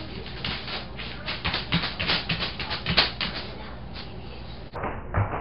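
A cat's paws and claws scrabbling on a hard floor: irregular taps and scrapes, several a second, as it pounces and scrambles. The sound turns abruptly duller near the end.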